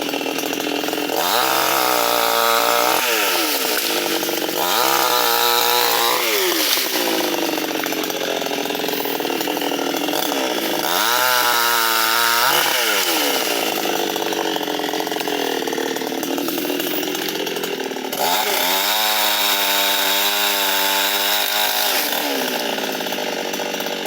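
Vulcan VSL550 two-stroke petrol chainsaw running, its engine revving up four times to a higher note and dropping back to idle between, with the longest stretch at full throttle near the end, as it prunes mango branches.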